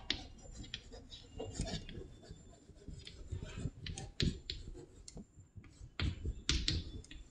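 Pen writing: irregular scratching strokes and small sharp taps, a few louder strokes near the end.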